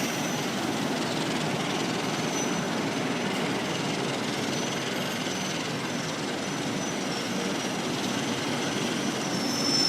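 Passenger train rolling steadily through the station, a continuous rumble of coaches and wheels on the rails. A faint high wheel squeal comes and goes.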